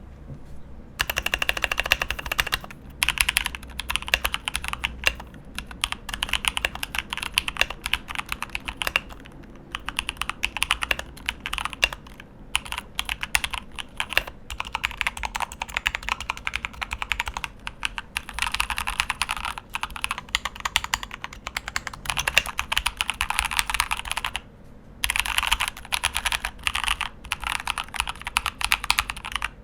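Typing on a Keychron K2 mechanical keyboard with brown switches and a plastic frame: fast runs of key clicks and clacks, broken by a few short pauses.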